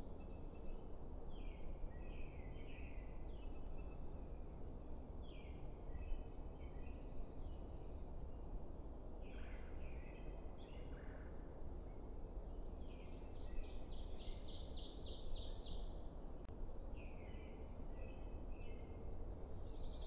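A pine warbler sings one trill of evenly repeated notes, about three seconds long, that swells in volume toward its end, a little past halfway through. Other small birds give short chirps here and there over a steady low background hiss.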